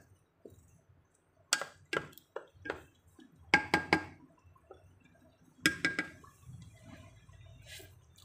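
Wooden spoon knocking against the side of a stainless steel pot while stirring noodles, a series of clinks in small clusters with the pot ringing briefly after each.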